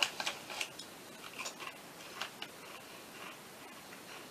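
Crinkly chip bag crackling in sharp, scattered bursts as a hand rummages inside it for chips.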